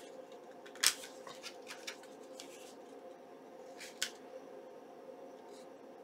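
Paper envelopes being handled and pressed down onto a cutting mat: soft paper rustles, with a sharp tap about a second in and another about four seconds in.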